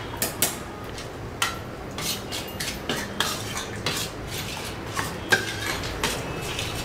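Kitchen clatter: metal pots and utensils clinking and knocking, a string of irregular sharp clinks.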